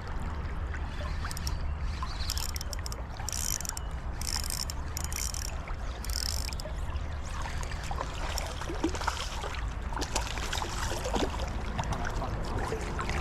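Creek water running steadily, with a handful of short splashy bursts in the first half as a hooked fish is played near the surface.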